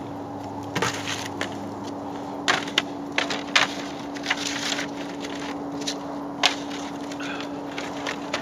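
Irregular sharp crunches and knocks, about a dozen, from footsteps in packed snow and plastic grain buckets and feed tubs being handled, over a steady low hum.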